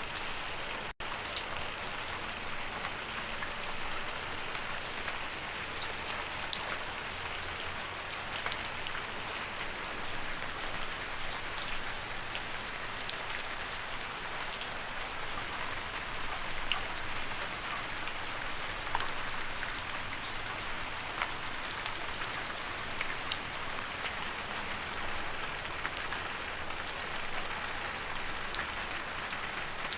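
Steady rain falling, an even hiss dotted with many single drops clicking. There is a split-second gap in the sound about a second in.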